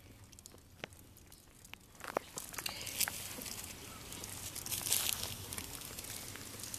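Crinkly rustling and handling noise close to the microphone, faint for the first two seconds and then steady.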